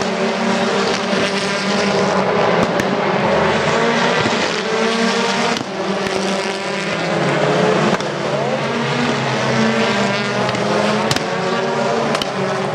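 A pack of British Touring Car Championship cars racing through a bend, several 2.0-litre turbocharged four-cylinder engines running at once and overlapping, their notes rising and falling in pitch through gear changes. A few sharp cracks cut through, about three seconds in and twice near the end.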